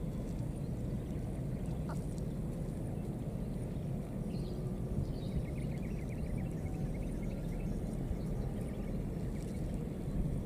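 Steady low outdoor rumble, with a faint rapid trill of chirps about halfway through.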